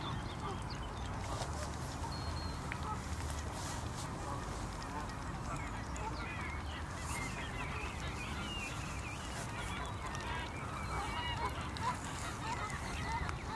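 Canada geese calling with scattered short honks, the calls coming thicker near the end, over a steady low rumble.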